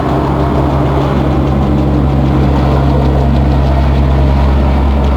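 An engine running with a steady, deep hum.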